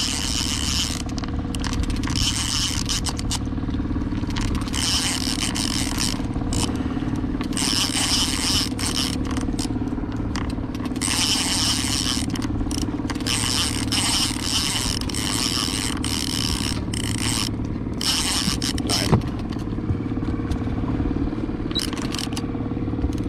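Boat motor running steadily under a trolling boat, while an Okuma Magda Pro line-counter reel is cranked in short spells of about a second with gaps between them. One sharp knock comes late on.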